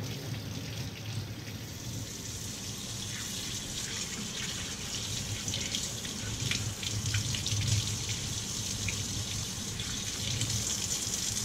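Kitchen tap running into a stainless steel sink, water splashing over hands as small bicycle pulley wheels are rinsed of degreaser in the stream.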